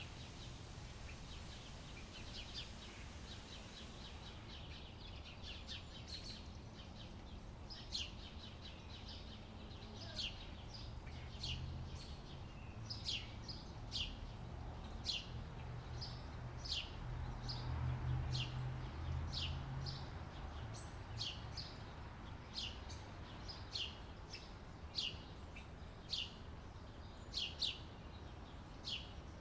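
Outdoor ambience of birds chirping, with short high chirps that sweep quickly downward. The chirps are dense at first and then come about once a second. A low background rumble runs underneath and swells in the middle.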